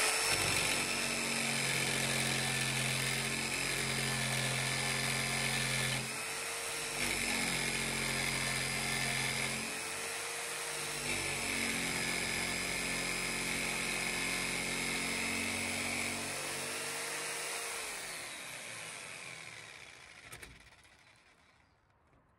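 Jigsaw cutting through a narrowboat's steel roof, its motor running steadily under load with the pitch shifting briefly twice, then winding down and stopping near the end. The cut is going through, but not easily.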